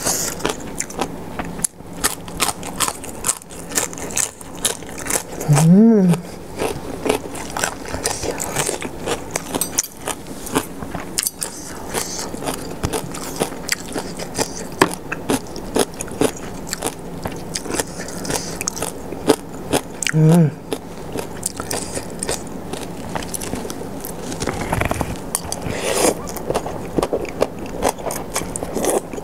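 Close-miked eating: crunching and chewing of spicy som tam salad and crisp fresh lettuce, with many small crisp bites and wet mouth sounds and spoon and fork scraping and clinking. Two brief voiced sounds, about six seconds in and again about twenty seconds in.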